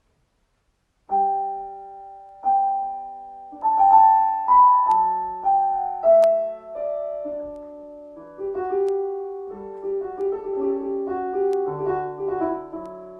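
Piano playing a short phrase of chords, starting about a second in, each chord struck and left to ring and die away.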